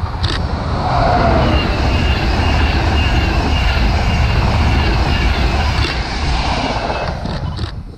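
An LNER InterCity 225 electric express passes at speed: a heavy rumble of wheels on rail with a rush of air, loudest from about a second in and dying away near the end.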